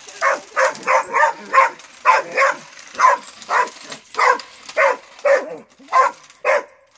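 A dog barking over and over, about two short barks a second, at a remote-control toy car it is chasing.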